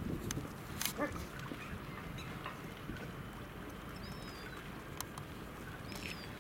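A dog barks in the background about a second in, over steady low outdoor noise. A few short, high chirps follow later.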